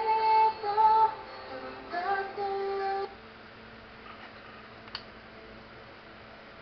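A high voice singing with music, gliding between sustained notes, for about three seconds and then stopping. After that only a faint steady hum remains, with one short click near the end.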